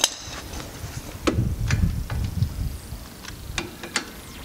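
Metal hand tools clinking on the front strut bolts as a socket wrench is moved and fitted. There is a sharp click at the start, a clank followed by a short low rattle about a second in, and a few light ticks near the end.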